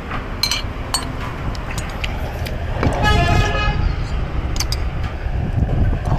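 A vehicle horn honks once, for just under a second, about three seconds in, over a steady rumble of street traffic. A few light clinks of a metal spoon against a ceramic bowl.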